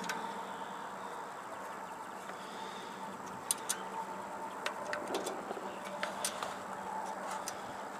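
Scattered small metallic clicks and taps of hand tools on the Briggs & Stratton engine's parts as the carburettor is put back on. A faint steady hum runs underneath.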